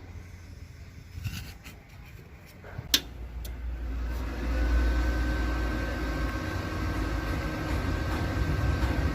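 Stick welding with a thin 1.6 mm electrode on sheet metal: a few light clicks and a sharp tap as the arc is struck, then a steady crackling hiss from about four seconds in that slowly grows louder.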